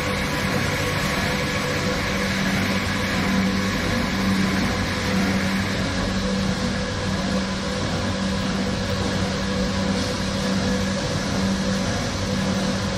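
Corrugated-carton converting machine running, its feeder and conveyor belts moving board: a steady machine noise with a low hum and a few constant higher tones, never changing pace.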